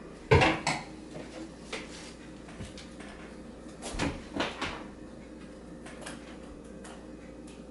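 A few short knocks and thumps in two groups, one just after the start and one about four seconds in, with a faint steady hum between them.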